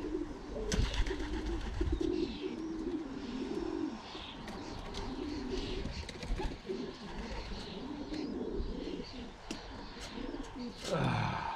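Racing pigeons cooing over and over in their loft, a low warbling, with scattered light clicks and taps. Near the end a short, louder sound falls steeply in pitch.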